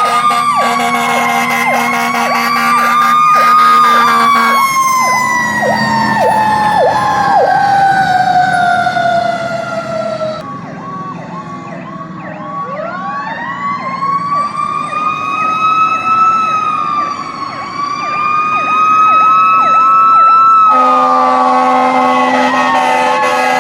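Several emergency vehicle sirens sounding together: a mechanical siren slowly winding down, cutting out, then winding back up to a high steady pitch and falling again, over an electronic siren yelping. A horn blasts in the first few seconds and again from about three seconds before the end.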